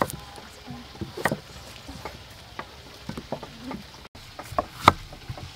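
Knives slicing pineapple and vegetables on thick wooden chopping blocks: a few scattered knocks of the blades hitting the wood, the loudest near the end.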